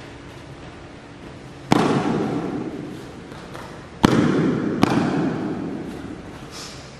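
Three sharp slap-like impacts from a pencak silat performer's strikes and stamps during a solo form, the first a couple of seconds in and two close together near the middle, each echoing for a second or more in a large hall.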